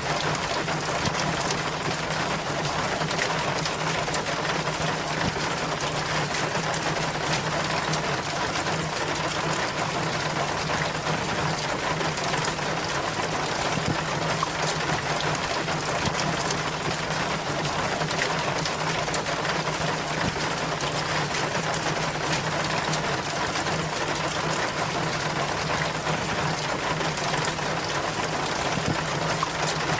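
Rainwater running down a rain chain: steady splashing and trickling, with a faint steady low hum underneath.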